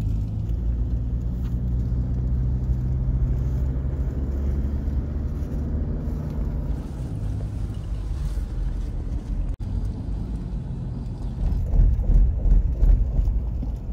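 A car's engine and road noise heard from inside the cabin while driving: a steady low drone that grows louder near the end.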